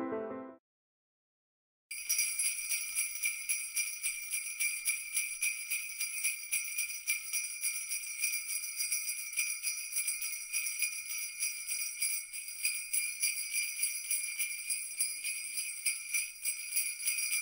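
Jingle bells shaken in a steady, quick rhythm, starting about two seconds in. Just before that, the last of a short synthesizer tune fades out.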